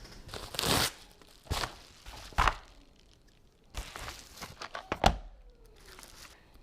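A cardboard mail package being opened by hand: a short tearing noise, then a few separate knocks and a cluster of clicks, with one sharp crack, the loudest, about five seconds in.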